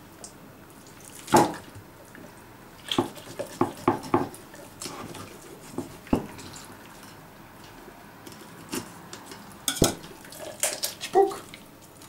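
Small boning knife cutting the head off a bream on a wooden cutting board: scattered clicks and knocks as the blade works through the fish behind the gill cover and taps the board, busiest a few seconds in and again near the end.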